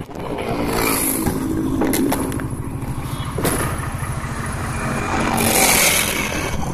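Honda CBR150R's single-cylinder engine idling with a steady low pulse, overlaid by scraping and rubbing from a hand over the phone's microphone.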